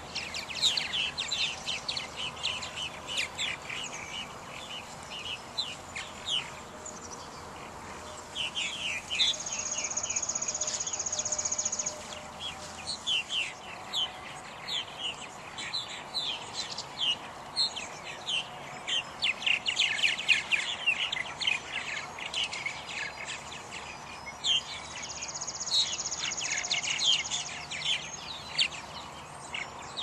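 Purple martins chirping and chattering at their colony: many short, quick, falling calls overlapping one another. A high, steady buzz sounds twice, once about a third of the way in and again a little past the middle, each lasting a couple of seconds.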